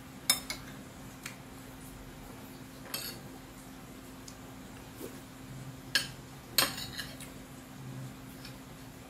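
Metal fork and spoon clinking and scraping against a plate while eating: several separate clinks, the loudest about six to seven seconds in.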